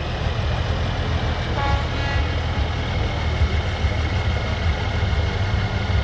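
Trial truck's diesel engine running with a steady low rumble as the truck crawls slowly up a steep dirt mound.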